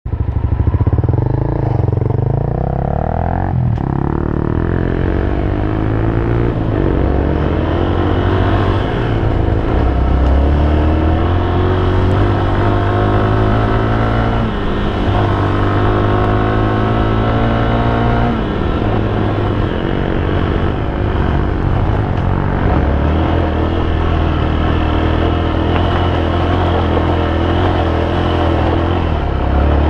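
Honda XR250's single-cylinder four-stroke engine under way on a dirt track, its pitch climbing as it accelerates and falling back at each gear change, over a heavy low rumble.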